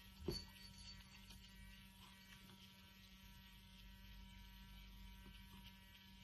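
Near silence with a faint steady electrical hum, and one soft click shortly after the start.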